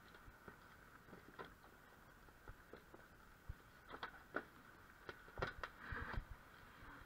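Faint metallic clicks, knocks and scrapes of a motorcycle exhaust dB killer baffle being handled at the silencer. A cluster of louder knocks comes between about four and six seconds in.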